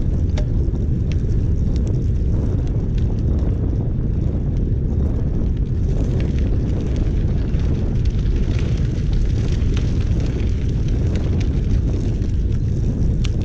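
Wind buffeting the microphone of a camera on a moving bicycle, a steady low rumble mixed with tyre noise on the path, with scattered light ticks and clicks from the bike and gravel.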